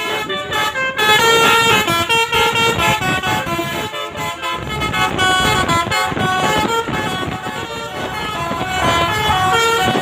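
Bus basuri musical air horn (telolet) playing a fast melody, a quick run of stepped notes, with road traffic underneath.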